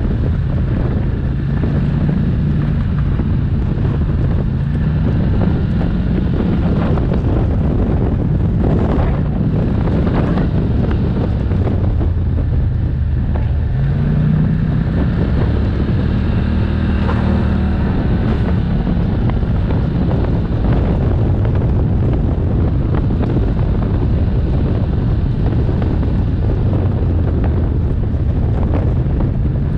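ATV engine running as the quad rides along a dirt trail, its pitch climbing about halfway through as it speeds up, with wind buffeting the microphone.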